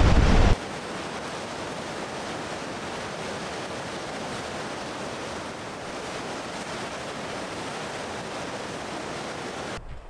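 Wind buffeting the microphone for the first half second, then the steady, even rush of a creek at peak snowmelt flow pouring over granite cascades, which cuts off abruptly near the end.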